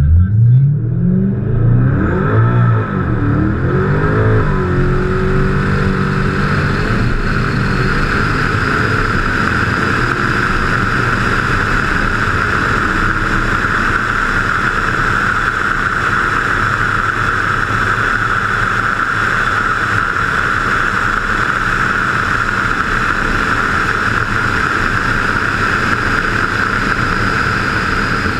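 Modified Ford Mustang V8 accelerating hard from a launch, its pitch rising in several sweeps through the gears over the first few seconds. It then settles into a steady, loud rush of engine and wind noise at high speed.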